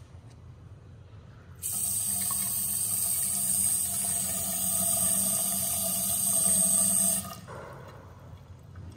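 Tap water running from a bathroom sink faucet into the basin. It starts suddenly about a second and a half in and stops suddenly a few seconds later as the tap is shut off.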